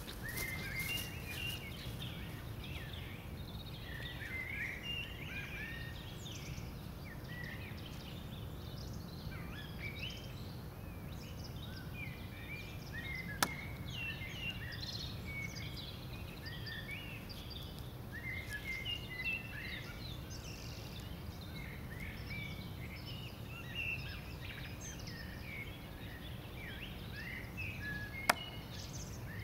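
Small birds chirping continually over a steady low background rumble. Twice, about 13 seconds in and again near the end, a single sharp knock rings out as a thrown steel knife strikes the wooden target.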